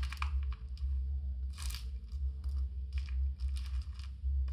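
Small screws and metal parts rattling and clicking in a plastic box as a hand rummages through it, with one longer rustle just under two seconds in, over a steady low hum.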